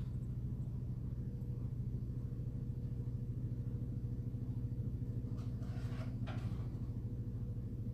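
Steady low background hum with a fast flutter, which the host apologises for as loud background noise. A few faint clicks come about five to six seconds in.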